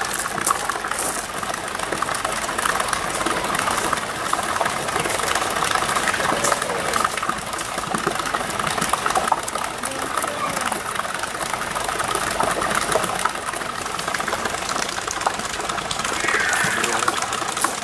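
Steady rush of fountain water, with faint voices in the background.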